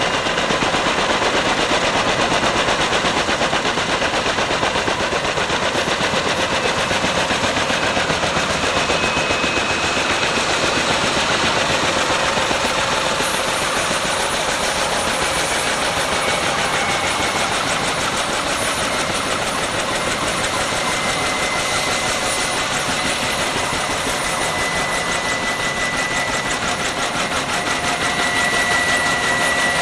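Kaman K-MAX intermeshing twin-rotor helicopter hover-taxiing: a loud, rapid, continuous chop from the two rotors under a steady high turbine whine, which grows stronger near the end.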